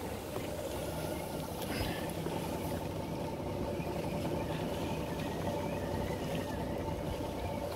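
A sailing yacht's inboard engine running steadily, an even hum, with wind and water noise around it.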